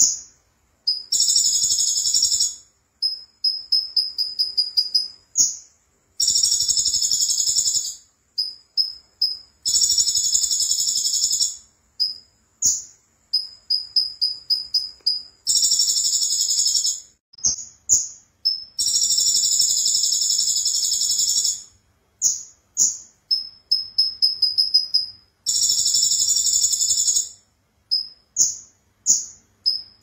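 A caged konin (kolibri ninja), a small dark sunbird, singing in a high pitch: loud, dense, buzzing trills of one to three seconds alternate with quick runs of short, thin chirps, with brief pauses between phrases.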